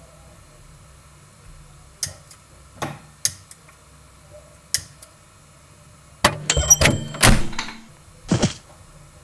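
Low steady hum of a microwave oven, with a few sharp clicks, then a loud burst of clattering and knocking about six seconds in and one more thump near the end.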